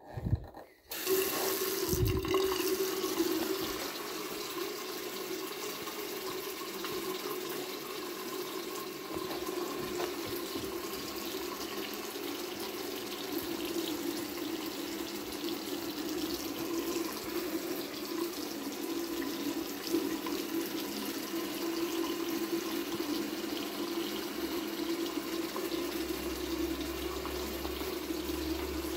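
Bathroom sink tap turned on about a second in, then a thin stream of water running steadily into the basin and drain.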